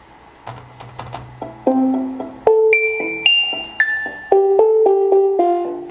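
Electronic notes from the Typatone web app, which turns each typed letter into a note: a string of short pitched tones, each starting every half second or so at a new pitch, like a simple piano melody.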